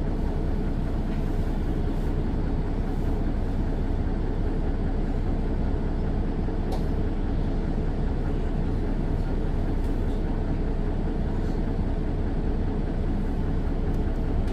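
Mercedes-Benz Citaro bus's Daimler OM906 6.4-litre diesel running steadily, heard from inside the bus as a constant low rumble with road noise.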